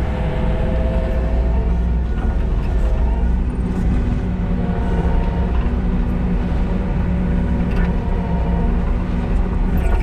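Kubota SVL97-2 compact track loader's diesel engine running steadily under load while working crusher run, with a whine rising and falling above the engine drone.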